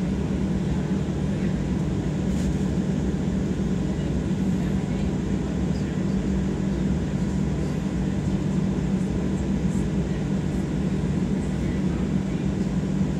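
Steady cabin noise of a Boeing 737 taxiing, its jet engines running at low power under an even low hum.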